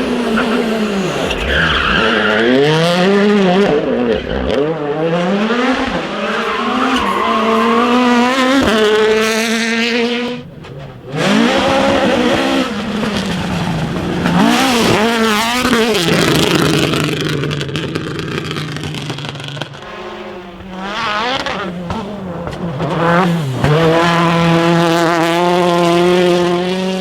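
Rally car engine at full throttle, revving up and dropping again and again through quick gear changes, with tyre skidding noise.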